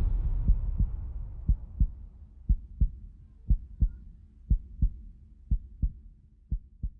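Heartbeat sound effect: pairs of low thumps (lub-dub) about once a second, over the fading rumble of a boom.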